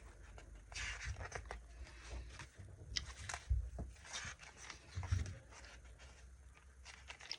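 Paper planner sticker sheets being handled and turned over: light rustles and small taps, with a couple of dull thumps about halfway through.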